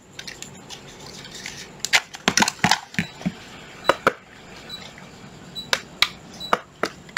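Hard objects being handled: a series of short, sharp clicks and knocks, a cluster of them about two to three seconds in and more spread out after, with no drill motor running.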